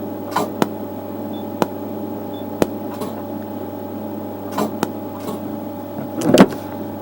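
ND:YAG laser pulses snapping against rusty metal, used as a rust remover: about seven irregular sharp clicks, the loudest near the end, over a steady hum.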